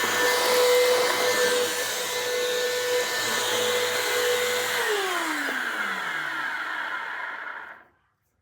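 Bissell vacuum cleaner running with a steady whine. It is switched off about five seconds in, and its motor winds down in a falling pitch for about three seconds until it stops.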